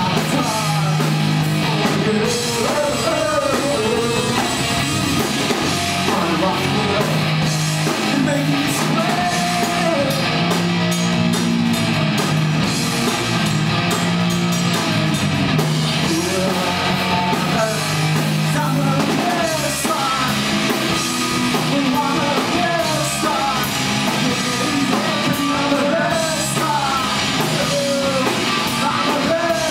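Live rock band playing: a male singer over electric guitar, electric bass and a drum kit.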